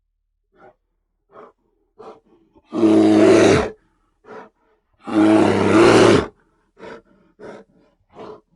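Bear vocalising: a few short grunts, then two long, loud roars about two seconds apart, each lasting about a second, followed by more short grunts.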